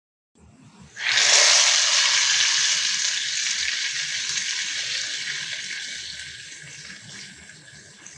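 Water running, starting suddenly about a second in and slowly fading away.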